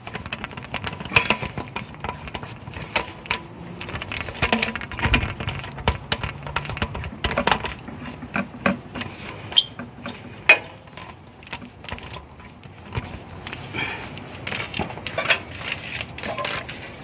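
A braided radiator hose and its metal fitting being handled and worked into place on an engine: irregular clicks, rubbing and light metal knocks, with one sharper knock a little past the middle.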